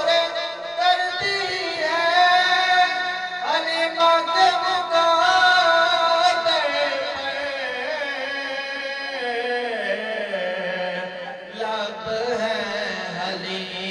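A man singing an Urdu naat solo, drawing out long held notes that glide and waver, with the melody sinking lower in the second half.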